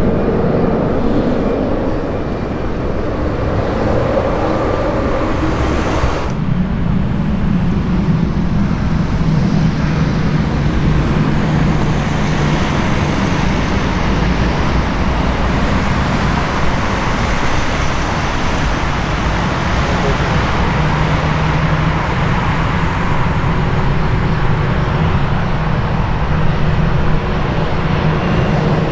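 Aircraft engines running steadily with a low hum under a wash of noise; the sound changes abruptly about six seconds in.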